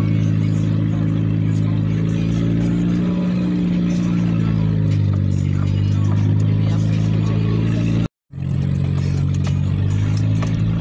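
SUV engine running under load at a low, steady crawl, heard from inside the cabin; its note rises a little and settles back. The sound drops out completely for a moment about eight seconds in.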